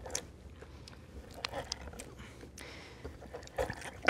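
A lemon half being twisted and pressed by hand on a glass citrus reamer: irregular wet squelches and small clicks of the fruit and hand against the glass.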